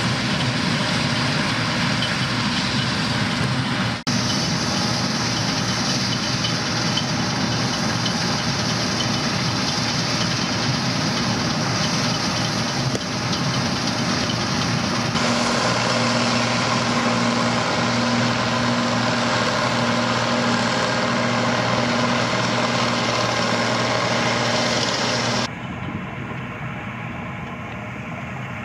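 Bizon Z056 combine harvester at work, its engine and threshing machinery running with a steady mechanical din. The sound changes abruptly about four seconds in and about fifteen seconds in, where a steady engine hum comes through. Near the end it drops quieter.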